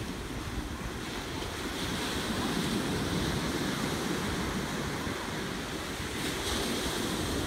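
Surf breaking on a rocky shoreline, with wind buffeting the microphone.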